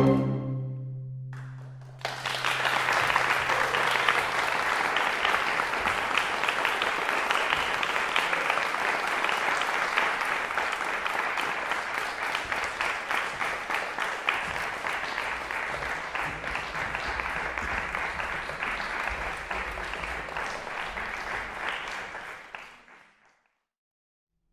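A string quartet's final chord sounds and dies away over the first two seconds. Then an audience applauds steadily for about twenty seconds, fading out shortly before the end.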